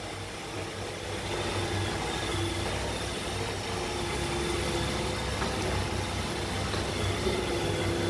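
iRobot Roomba i7 robot vacuum running as it drives across the floor: a steady, smooth motor hum with a faint high whine, growing a little louder in the first couple of seconds.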